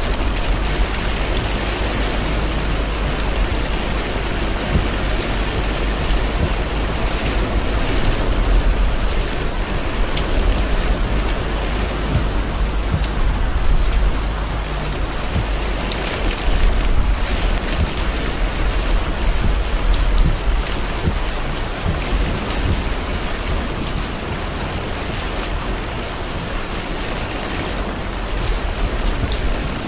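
Torrential rain pelting the roof and windshield of a moving car, a dense steady hiss with a low rumble underneath, swelling louder a few times.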